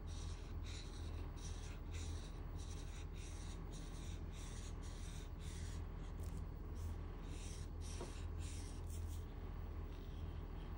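Marker tip scratching across drawing paper in quick, repeated shading strokes, about two or three a second, over a steady low hum.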